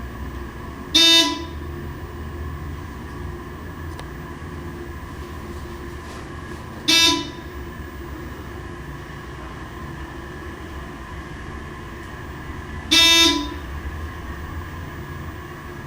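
A short, buzzy, horn-like beep sounds three times, about every six seconds, over a steady low hum.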